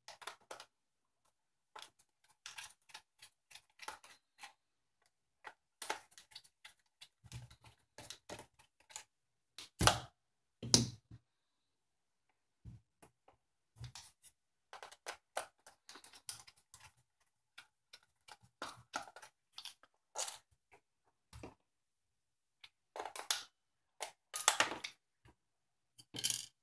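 Precision screwdriver turning out the small screws of a Texas Instruments TI-82 calculator's plastic back case: scattered faint clicks and scrapes of the tool, screws and plastic being handled, with two sharper knocks about ten and eleven seconds in.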